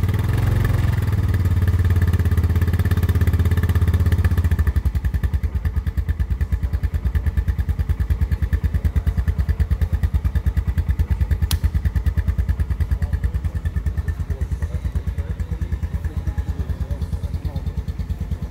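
Honda Recon 250 ATV's single-cylinder four-stroke engine idling through its exhaust right after a start. It runs at a faster, fuller idle at first, then about four and a half seconds in drops to a slower idle with distinct, even exhaust pulses.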